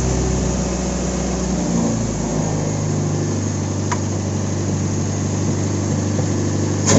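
Car petrol engine idling steadily; about two seconds in the idle note shifts higher, and a brief louder burst comes near the end. The mechanic says it is not burning well, so the combustion is uneven even though the hard-starting fault is fixed.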